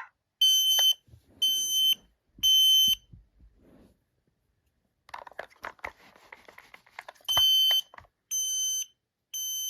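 Kidde KN-COSM-IBA combination smoke and carbon monoxide alarm sounding its smoke alarm: three short, high-pitched beeps, a pause filled with rustling and clicking handling noise, then three more beeps near the end. The alarm is going off because the unit is soaked with water.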